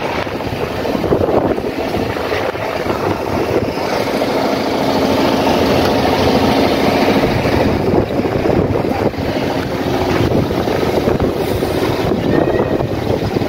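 Wind buffeting the microphone, a steady rumbling roar with fast flutter, with a faint low hum underneath from about four to eight seconds in.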